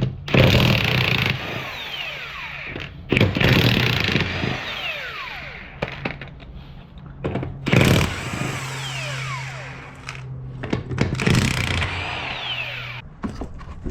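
Impact wrench spinning off the 14 mm wheel lug nuts in four bursts, each ending in a falling whine as the motor winds down.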